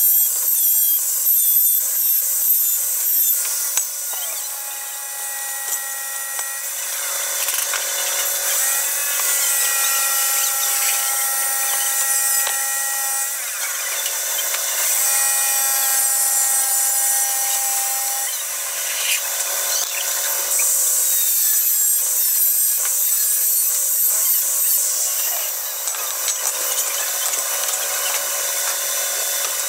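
A handheld power tool grinding metal: a constant scratchy hiss, with the motor's whine holding a steady pitch for a few seconds at a time, three times over.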